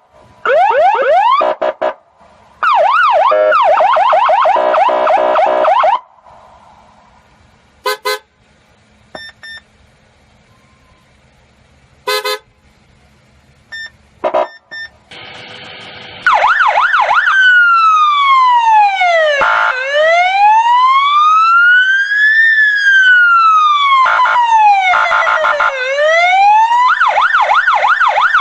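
Emergency vehicle siren cycling through patterns: a fast yelp with rapid rising sweeps at the start, a quieter gap broken by two short blasts, then a slow wail rising and falling over several seconds that switches back to the fast yelp near the end.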